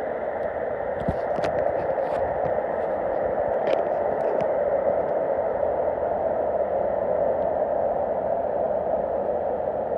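Steady static-like noise, with a few faint clicks in the first half.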